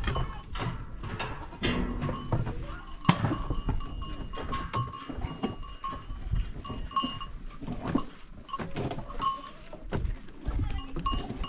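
A flock of goats and sheep wearing bells, the bells clinking at uneven intervals amid scattered knocks.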